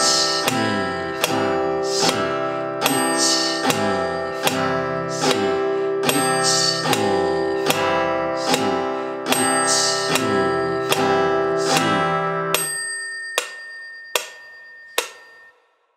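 Acoustic guitar strummed steadily on one held chord, in time with a metronome. The strumming stops about 13 seconds in, and the metronome's clicks go on alone for three more beats.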